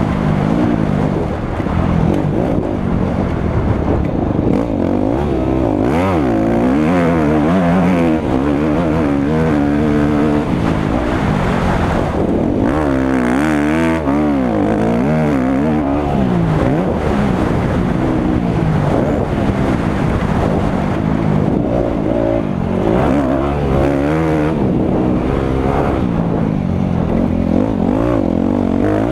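Motocross bike engine heard from an on-bike camera, revving up and dropping back again and again as the rider accelerates, shifts and rolls off over the dirt track. There is a quick run of up-and-down revs about halfway through.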